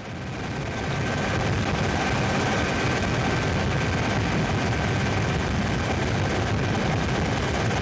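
Helicopter in flight heard from inside the cockpit: steady engine and rotor noise with a fast low chop and a faint steady high whine. It rises in over the first second, then holds constant.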